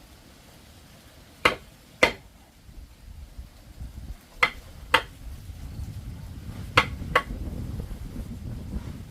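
Hammer blows, six sharp strikes in three pairs about half a second apart, over a low rumbling background that grows louder in the second half.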